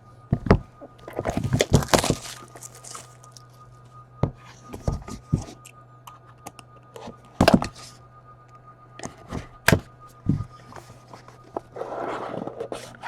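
Trading cards and plastic card holders being handled on a table: a scattering of sharp clicks and light knocks, with a short rustle near the end, over a steady low electrical hum.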